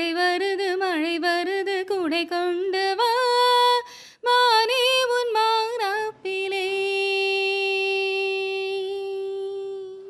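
A woman's solo voice singing unaccompanied, the melody moving in quick ornamented turns of pitch. It settles a little past halfway into one long held note that fades away at the end.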